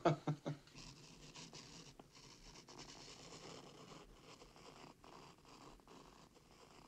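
A razor blade cutting a page out of a telephone directory: faint, irregular scratching and rustling of the blade drawn through paper.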